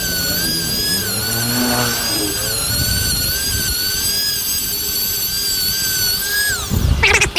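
Small high-speed rotary grinder with an abrasive head polishing tight corners of a metal part: a steady high whine whose pitch wavers slightly under load. Near the end the whine falls in pitch as the tool winds down, followed by a burst of loud rough noise.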